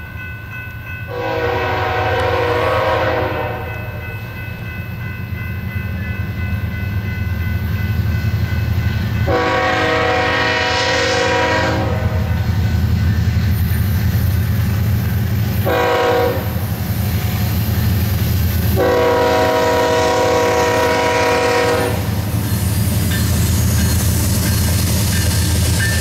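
Air horn of a BNSF GE ES44C4 locomotive at the head of a stack train, sounding the grade-crossing signal: two long blasts, a short one, then a long one. Under it, the low rumble of the approaching diesel locomotives builds steadily.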